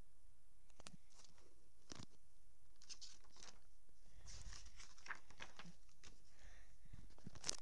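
Paper rustling and scattered light clicks and taps as a book's pages are turned and handled close to the microphone, with one sharper click near the end.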